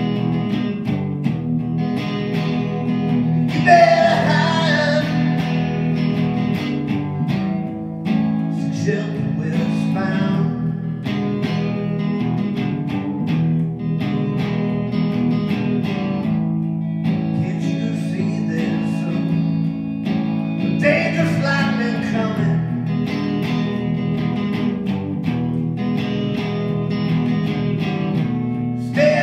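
Amplified solid-body electric guitar playing an instrumental passage, with wavering, sliding high notes about four seconds in and again about twenty-one seconds in.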